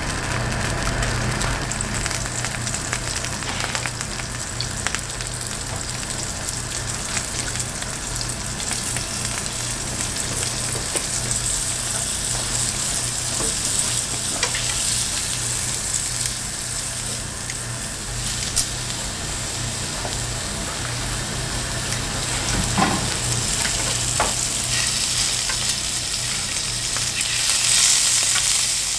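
Food sizzling steadily in hot oil in a frying pan, swelling louder near the end, with a few light clicks of a utensil against the pan.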